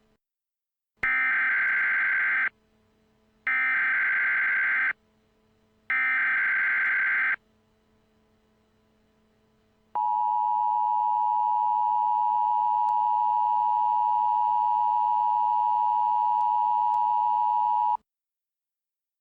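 Emergency Alert System tones: three short bursts of SAME header data about a second apart, then after a short pause the steady two-tone attention signal held for about eight seconds before cutting off sharply. These tones mark the start of a broadcast emergency alert.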